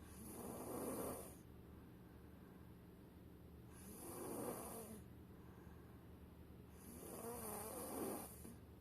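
A little boy snoring in his sleep: three snores about three and a half seconds apart, each swelling for a second or so, over a steady low hum.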